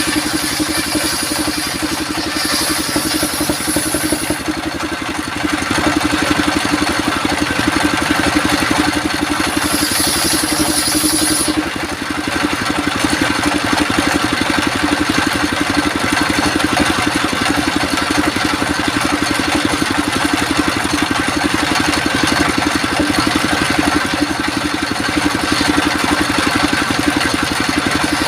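An engine running steadily at a constant speed, with two short spells of high hiss, a few seconds in and again around ten seconds in.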